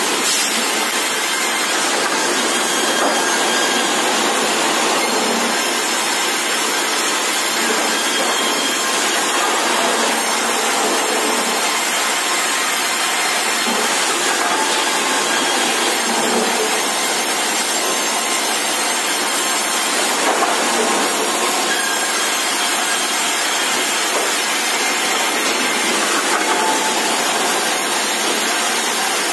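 Sawmill saw machine running steadily as a squared timber feeds through it and is cut: a loud, continuous noise with a few faint knocks.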